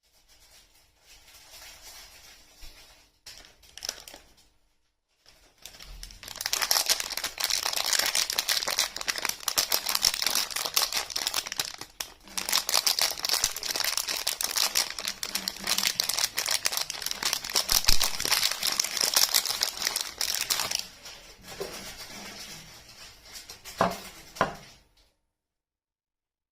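Soap wrapping being unwrapped by hand close to the microphone, its wrapper crinkling. Faint handling comes first, then from about six seconds in a long stretch of dense, rapid crinkling that eases off near the end before cutting off suddenly.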